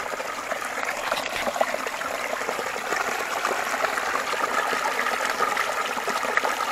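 Spring water trickling in a small spring-fed brook, running steadily and growing a little louder.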